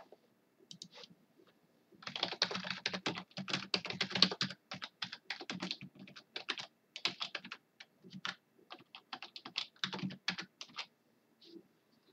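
Typing on a computer keyboard: a couple of stray key clicks, then quick key clicks from about two seconds in, in uneven runs with short pauses, stopping about a second before the end.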